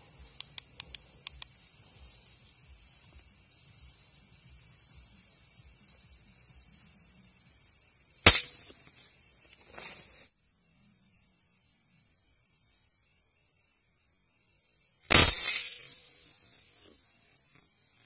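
Crickets trilling steadily in the night, then a single sharp rifle shot about eight seconds in. A second shot about fifteen seconds in has a longer fading tail.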